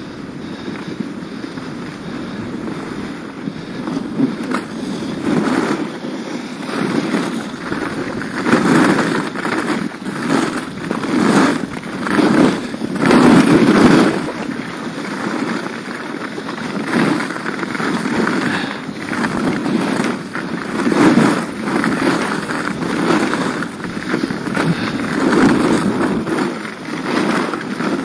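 Skis scraping and carving on packed snow, the scrape swelling with each turn about every one to two seconds.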